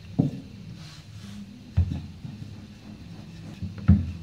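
Wooden rolling pin rolling out dough on a silicone baking mat: a low rumble with three dull knocks, the last and loudest near the end.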